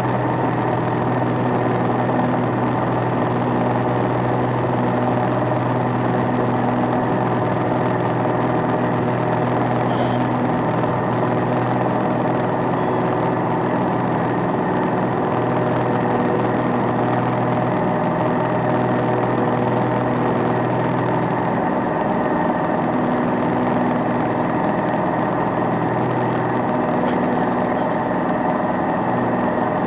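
Single-engine light aircraft's engine and propeller running steadily in flight, heard inside the cockpit as a constant drone with an even hum.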